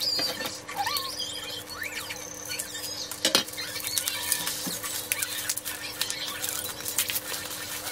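Rustling and crackling of packaging being handled, many small irregular crinkles, over a faint steady low tone.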